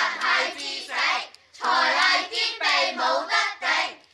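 A group of schoolchildren chanting a rhyming school cheer in unison, in two phrases with a short break between them.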